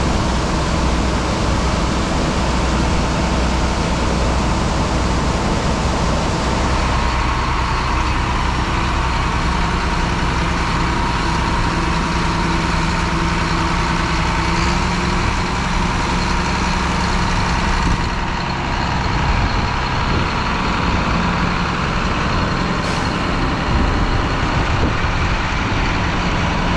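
Heavy farm vehicle engine running steadily under load, with a constant drone and a steady whine.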